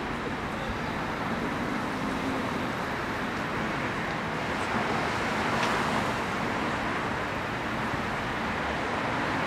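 Steady outdoor street ambience: a continuous noisy hiss with no distinct events, swelling slightly a little past the middle.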